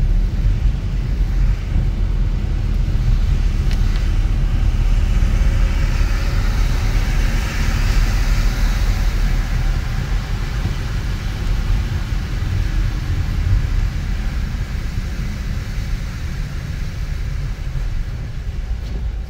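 A car driving on snowy city streets: a steady low rumble of engine and road, with a hiss that swells and fades over a few seconds around the middle.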